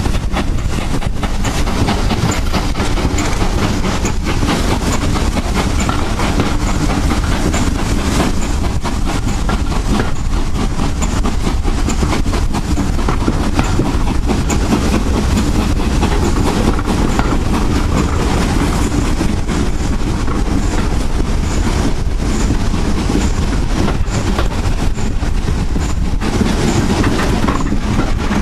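GWR small Prairie 2-6-2 tank steam locomotive 5552 working hard up a steep gradient with its train: a loud, continuous run of exhaust beats and train noise.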